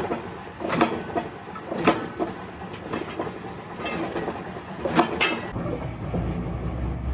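Workshop knocks and clanks about once a second, over a steady noisy background. About five and a half seconds in, a steady low hum comes in.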